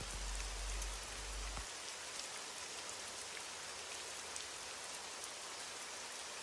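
Steady rain: an even hiss with scattered faint drop ticks. A low hum underneath stops suddenly under two seconds in.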